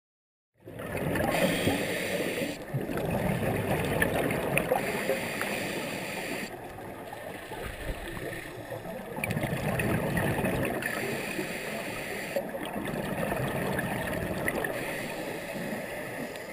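Scuba diver breathing underwater through a regulator: gurgling exhaust bubbles alternating with quieter inhalations, in a cycle every two to three seconds.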